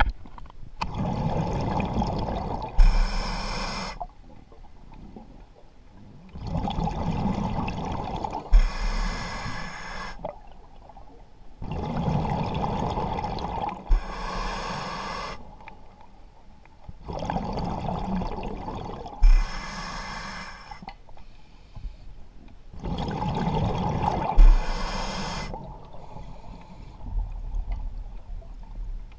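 Scuba diver breathing underwater through a regulator, five slow breaths about five and a half seconds apart. Each is a long rush of air followed by a shorter, brighter hiss that starts with a click.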